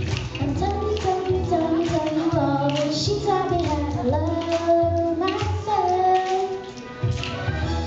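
A young girl singing solo into a microphone, her voice gliding through a sung melody over instrumental backing music with a steady bass line.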